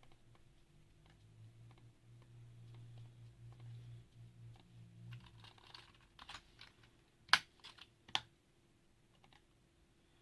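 Typing on a mechanical keyboard: scattered soft keystrokes, a quick run of keys past the middle, then two loud, sharp key strikes about a second apart.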